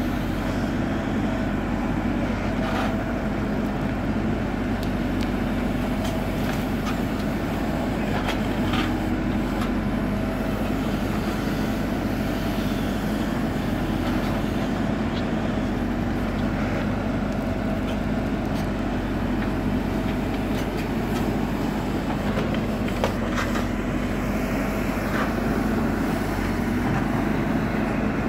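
JCB 4CX Eco backhoe loader's diesel engine running steadily as the machine works, with a few scattered short clanks or knocks.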